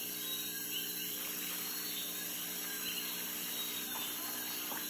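Newly installed aquarium sump pump running with a steady electric hum, over a constant hiss of water splashing into the sump.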